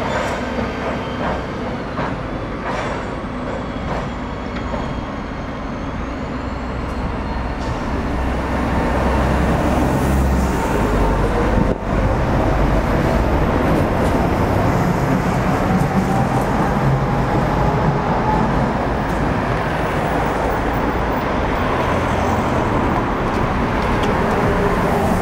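A Tatra T3 tram rolls over a track crossover, then city buses run past close by with their engines going. The sound grows louder about a third of the way in, with a slowly rising whine in the middle as the buses go past.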